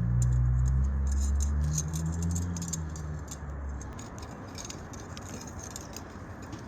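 Wood fire crackling in a small forge under the steady hiss of a hair-dryer blower. A low droning rumble is loudest over the first four seconds, then fades away.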